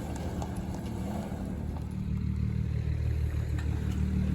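Off-road car's engine running at a low, steady pitch under load as it climbs a rock obstacle, growing slightly louder toward the end, with a few faint knocks.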